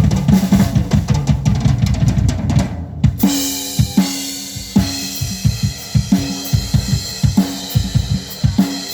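Drum kit played during a sound check: fast, dense kick and tom hits for about three seconds. Then the sound changes abruptly to a slower beat of kick, snare and cymbal under a held pitched note.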